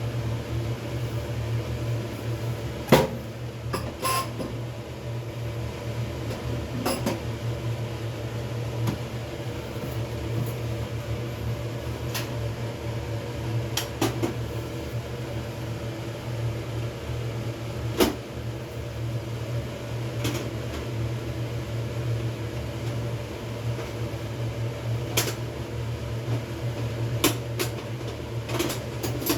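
A steady low hum with scattered sharp clicks and knocks as the knob and lever of a gas cooker are worked, trying to shut off the gas. The loudest click comes about three seconds in.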